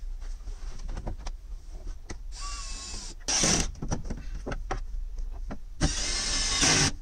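Handheld cordless power driver whirring in short bursts, three times, the last about a second long, with light clicks and knocks from parts being handled.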